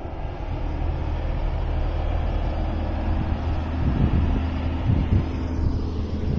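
Diesel engine of a tanker tractor-trailer running with a steady low hum as it comes down a mountain grade, with a few low thumps about two-thirds of the way in.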